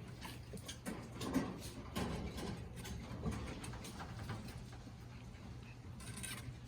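Shiba Inu puppies play-fighting, with irregular small taps, scuffles and brief puppy noises over a steady low hum.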